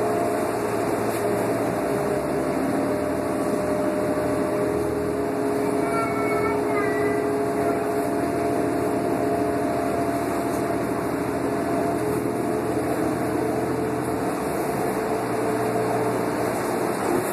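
Cummins ISL inline-six diesel and Allison B400R automatic transmission of a 2005 New Flyer D40LF transit bus running steadily at cruising speed, heard from inside the passenger cabin: a steady drone with a few held humming tones.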